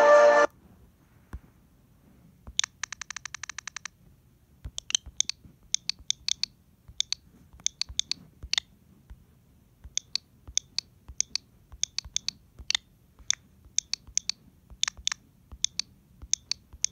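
Music cuts off just after the start. Then comes light clicking: a fast rattling run of clicks about two and a half seconds in, followed by irregular single and paired clicks, several a second, like typing on a keyboard.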